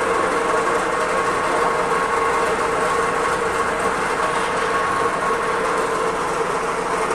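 A machine running steadily, a constant mechanical noise with an even, unchanging whine in it.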